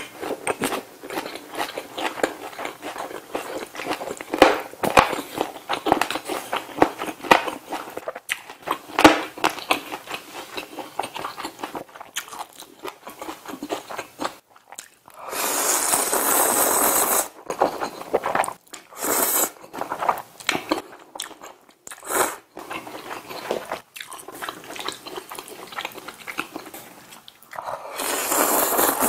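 Close-miked eating: wet chewing with crisp crunches from a lettuce-wrapped bite, then loud slurps of ramen noodles, one long slurp about halfway through, a few short ones after it, and another long slurp near the end.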